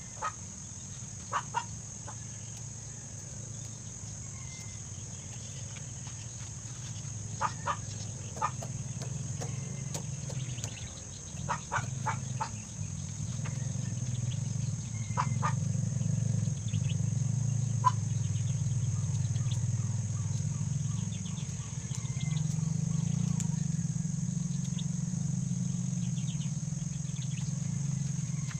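Backyard outdoor ambience: chickens clucking now and then over a steady high insect drone and a low, steady rumble that grows louder about halfway through.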